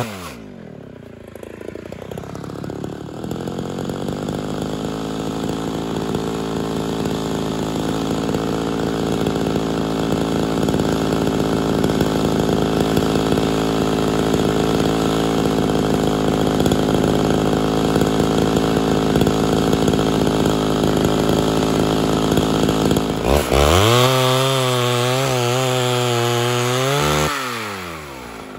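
Ported Homelite Super XL Auto two-stroke chainsaw dropping from high revs to a steady idle for about twenty seconds. About five seconds before the end it is revved up into a cut, its pitch dipping under load, then drops back to idle.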